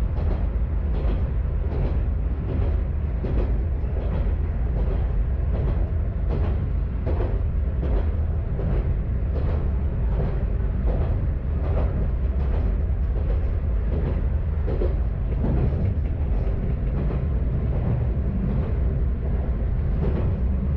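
Kanto Railway KiHa 532 diesel railcar running along the line, with a steady low engine and running rumble and regular wheel knocks about twice a second.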